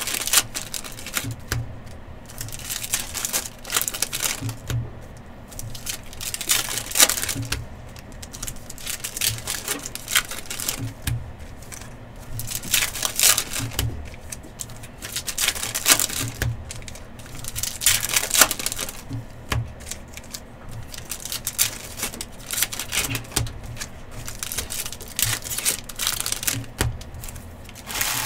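Trading card packs being torn open and the cards handled: wrappers crinkling and tearing, cards sliding and clicking against each other, in an irregular run of clicks and rustles.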